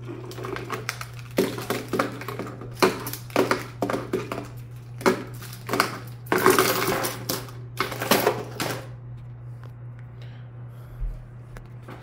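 Sharp metallic clicks and clatter of a Savage .308 bolt-action rifle being handled and its bolt worked open, a quick run of knocks that dies down about nine seconds in.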